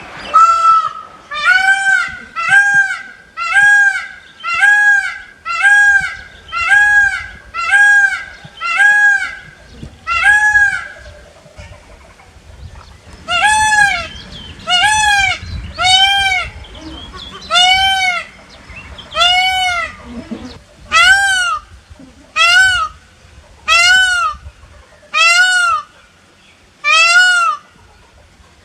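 Peacock calling over and over, a run of loud, arching calls that rise and fall in pitch, a little under a second apart. After a short pause about halfway through, a second run of similar calls follows at a slightly slower pace.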